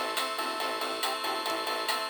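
Ringtone melody playing on a Samsung SGH-E600 mobile phone: a quick run of synthesized notes, thin and without bass.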